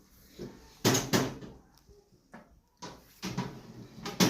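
Several knocks and clunks, a strong pair about a second in and more near the end: the door or lid of a washing machine being handled while it is loaded with clothes.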